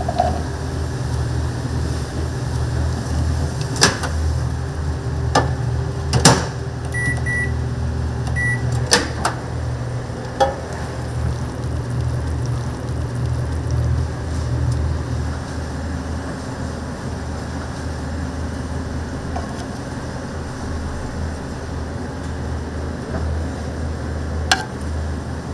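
Steady low hum of running kitchen equipment, with several sharp clicks and knocks. Three short electronic beeps sound about seven to eight and a half seconds in.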